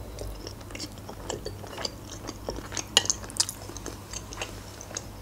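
Close-up chewing of fried pelmeni dumplings: irregular soft mouth clicks and smacks, with a couple of sharper clicks about three seconds in.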